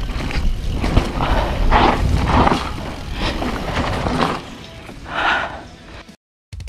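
Mountain bike ride down a dirt trail: steady rumble of wind and tyres on the camera's microphone, with several short louder scuffing rushes. It cuts off suddenly near the end.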